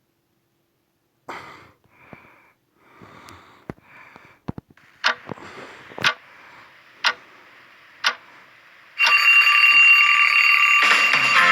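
Alarm clock sound effect: after soft rustles and clicks, four sharp ticks about a second apart, then a loud, steady alarm ringing from about nine seconds in. Guitar music comes in near the end.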